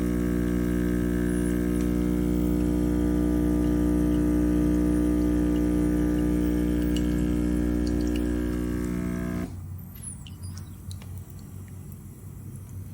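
De'Longhi Dedica Arte espresso machine's vibratory pump running with a steady, loud hum, then cutting off suddenly about nine and a half seconds in. After that come faint drips and small ticks.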